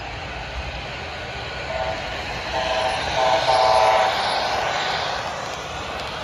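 Sound-equipped HO scale Amtrak diesel locomotive model blowing its horn as it nears a grade crossing: a few short blasts and then a longer one. Under the horn is the running noise of the model train on the track, which swells as the train passes close by.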